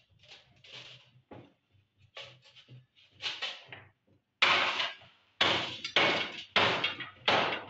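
Light scraping and handling of a dismantled CRT television's plastic parts, then a run of five sharp, loud blows from a wooden-handled tool, about one a second, in the second half as the set is knocked apart.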